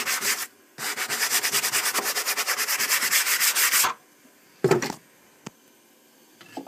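Hand sanding a CNC-milled wooden tray with a sanding block: quick, even back-and-forth rubbing strokes of sandpaper on wood, with a short pause just after the start. The strokes stop a little before four seconds in, and a single brief loud sound follows about a second later.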